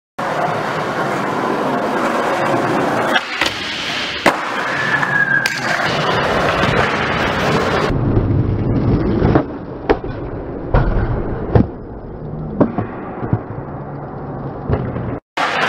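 Skateboard wheels rolling on a smooth concrete skatepark floor, a steady rumble broken by several sharp clacks of the board hitting the ground, tail snaps and landings.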